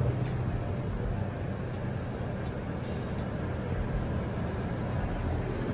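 Toyota Sequoia's V8 engine idling steadily.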